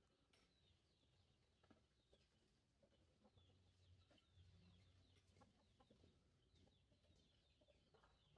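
Near silence, with faint, short, high bird chirps repeating through the background and a few soft clicks.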